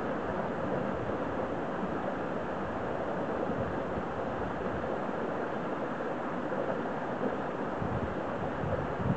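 Steady rushing of a mountain stream's running water, with a couple of brief low bumps near the end.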